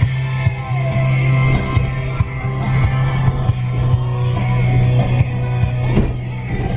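Rock music with guitar as a backing track.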